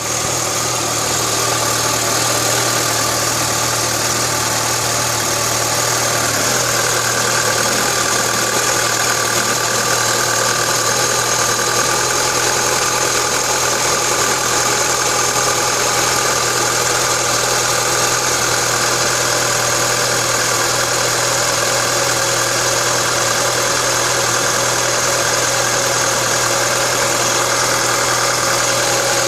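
2011 Mini Cooper's 1.6-litre four-cylinder engine idling steadily, with no revving.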